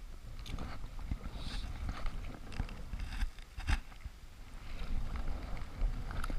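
Kayak paddle strokes: the blades dipping, splashing and dripping in the water, with a few sharp knocks, the loudest a little past halfway, over a low wind rumble on the microphone.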